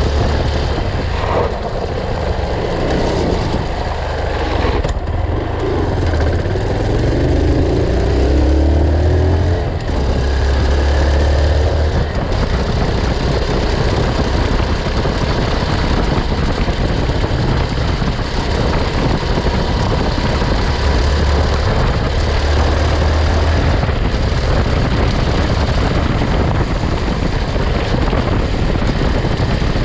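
Honda Bros trail motorcycle riding along a dirt road: its single-cylinder four-stroke engine runs under a heavy, steady low rumble of ride noise and tyre on dirt. The engine revs rise and fall a few times, mostly in the first third.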